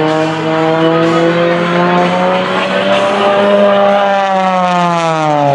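MXS aerobatic monoplane's propeller engine winding up on the back side of a loop. Its pitch rises slowly, then drops over the last second and a half as the plane passes.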